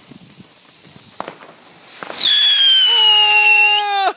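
Stryker Tank consumer firework shrieking out a whistle: after a couple of seconds of faint crackle with a single small pop, a loud shrill whistle starts about two seconds in. It sinks slowly in pitch, then dives sharply and cuts off near the end.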